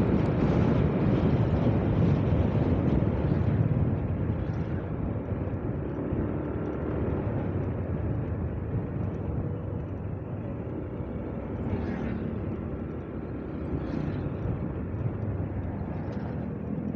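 Motorcycle on the move: steady wind rush and road noise over the running engine, easing a little after about four seconds.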